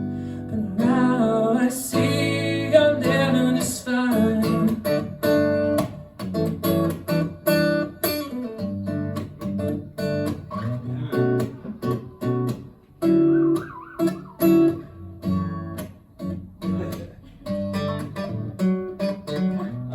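Guitar strummed and picked in a steady rhythm through a repeating chord progression.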